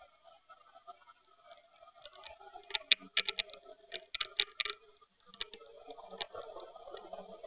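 A quick run of light clicks and taps, clustered about three to five seconds in, over a faint murmur that grows a little near the end.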